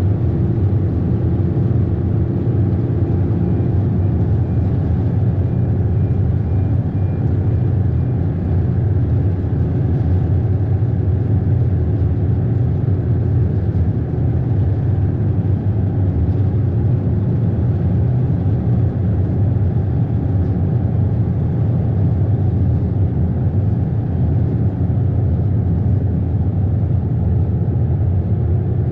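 Ferry's engine running steadily underway: a deep, even rumble, with a fainter rush of water along the hull.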